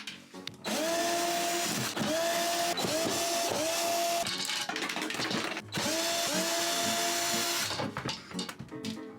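Cordless drill run in about six short bursts, each whine rising as the motor spins up and then holding steady before the trigger is released.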